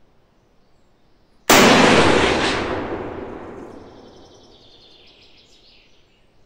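A single rifle shot from a Yugoslav Mauser M48A in 8x57 IS, firing a handload with period bullets and period powder, about a second and a half in. The report echoes and fades away over about three seconds.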